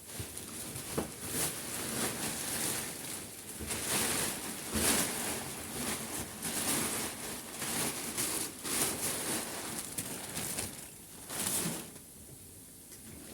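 Plastic packaging of a vacuum-compressed mattress rustling and crinkling in irregular bursts as it is handled and unwrapped. It grows quieter about a second before the end.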